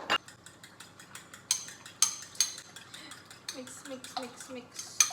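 A fork or utensil beating eggs in a bowl, with quick irregular clinks against the bowl's side and a few short squeaks.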